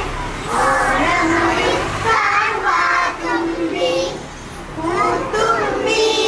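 A group of young children singing together in phrases, with held notes and a short break about four seconds in.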